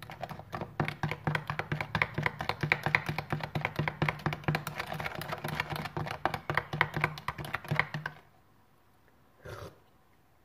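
A metal spoon stirring milk in a plastic cup, clicking quickly and steadily against the cup's sides as the raspberry jam and sugar are mixed in. The stirring stops about eight seconds in.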